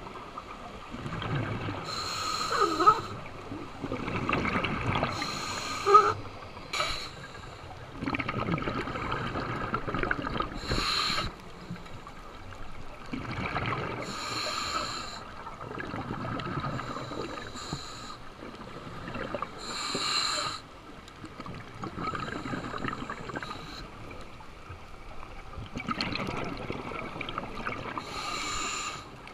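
Scuba diver breathing through a regulator underwater: hissing breaths and bursts of exhaled bubbles rushing past every few seconds, heard through the camera's waterproof housing.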